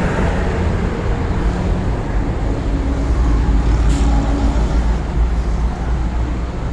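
Steady low rumble of a motor vehicle running, with a single short click about four seconds in.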